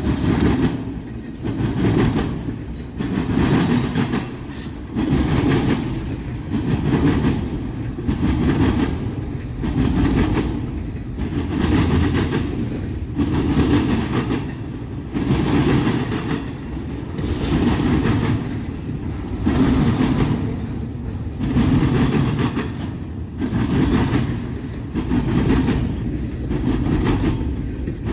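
Freight train cars of a CSX intermodal rolling past, their wheels clattering over the rail crossing (diamond) in a steady rhythm of about one clatter every second and a half.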